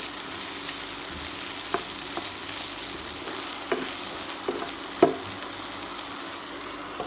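Diced potatoes, peas and peanuts sizzling in hot oil in a nonstick pan while being stirred with a spatula, with a few clacks of the spatula against the pan, the loudest about five seconds in. The sizzle eases slightly near the end.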